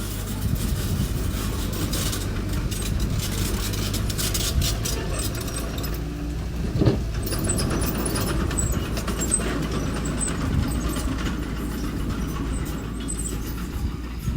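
Engine of a mini bulldozer or small dump truck running steadily, with metallic clanking, rattling and squeaking from the machine as it works, and one sharp knock about seven seconds in.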